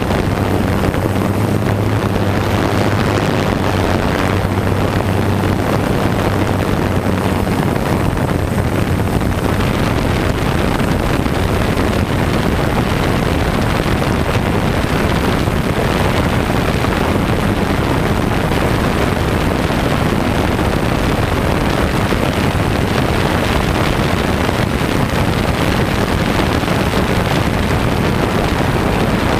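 A DJI F550 hexacopter's brushless motors and propellers buzzing steadily in flight, heard through the GoPro mounted on it, with wind rushing over the microphone. A low hum is plain for the first ten seconds or so, then blends into a broader rushing noise.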